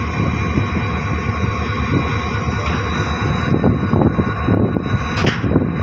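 Diesel locomotive engine idling: a steady rumble with high, steady whining tones over it. A brief sharper sound cuts through about five seconds in.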